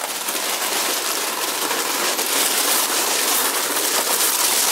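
Scooter tyres and footsteps crunching over loose gravel as a bare scooter frame is pushed along: a steady, gritty rustle.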